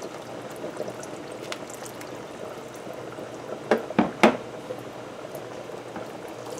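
Coconut milk pouring and dribbling through a small wire strainer into a pot of curry, a steady liquid sound, with two short sharp knocks a little under four seconds in.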